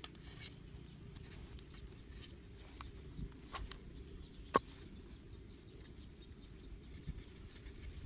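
Cleaver blade shaving a thin bamboo stick: faint scraping with a few sharp clicks, the loudest about four and a half seconds in.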